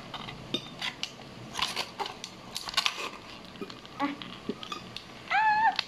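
Thin clear plastic bag crinkling and crackling in irregular little clicks as it is pulled at with the fingers and torn at with the teeth. Near the end a child gives one short high-pitched vocal sound.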